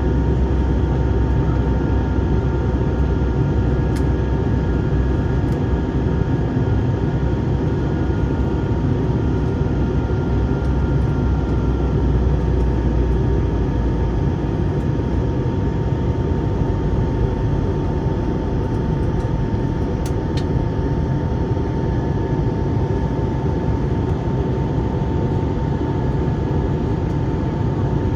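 Steady cabin noise inside an Airbus A321 airliner in flight: a dense rumble of engines and airflow with a thin, steady high whine over it. The deepest part of the rumble eases a little about halfway through.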